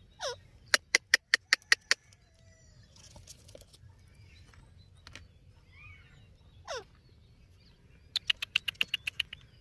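Indian ringneck parrot calling: a short downward-sliding squawk, then a quick run of sharp chirps. Another downward squawk follows later, and a fast burst of sharp chirps comes near the end.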